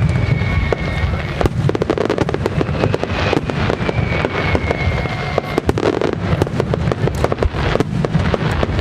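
A starmine fireworks barrage: dense, continuous booms and sharp crackling from shells bursting in rapid succession. Twice a whistle slowly falls in pitch.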